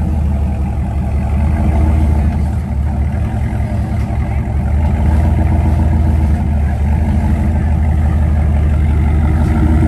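Suzuki Samurai engine running steadily at low revs, getting a little louder about halfway through.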